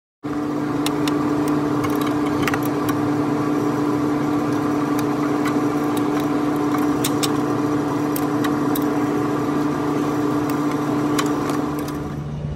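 A steady mechanical hum, like a running engine, with a constant drone, under scattered light metallic clicks of a wrench on the brake line nuts of the ABS unit. The hum starts abruptly and eases slightly near the end.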